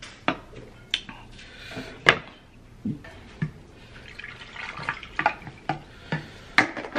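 Juice poured from a plastic pitcher into a tumbler, splashing in two stretches, among sharp knocks and clinks of a drink can being set down and cups and lids handled.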